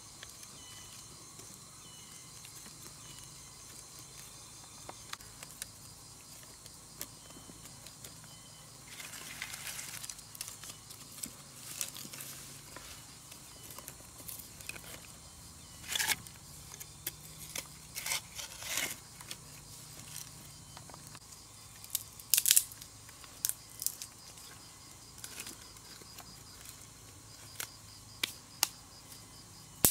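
Dry bamboo sticks and twigs clattering, cracking and scraping against soil as they are packed into a dug earth pit, in scattered sharp clicks and short rustles, loudest in a few bursts past the middle. A faint steady high hum runs underneath.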